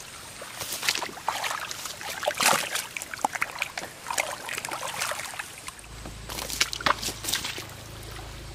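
Hands splashing and sloshing through shallow muddy water, feeling for fish in the mud, with irregular splashes of varying strength.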